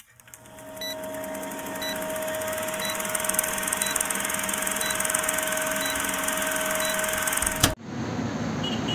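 Film-countdown sound effect: a steady projector whirr with a held tone and a short beep once a second. After a thump near the end it cuts off suddenly to roadside traffic noise.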